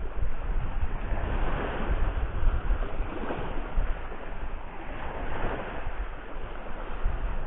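Small waves breaking and washing up over a sandy shore, surging and easing several times, with wind rumbling on the microphone.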